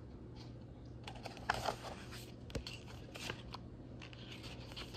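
Quiet scattered rustles and light taps from a picture book being handled and a page turned.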